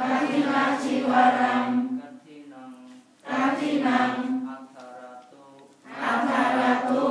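A congregation of lay Buddhists chanting in unison as a call and response: three loud group phrases, each one to two seconds long, with a single quieter voice leading between them.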